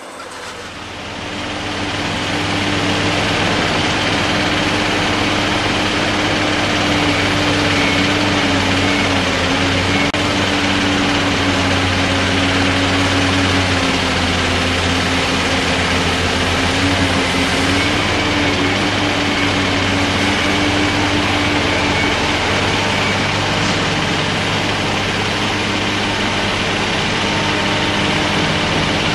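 Diesel engine of a Caterpillar long-reach excavator running at a steady speed. It fades in over the first couple of seconds, then holds an even hum.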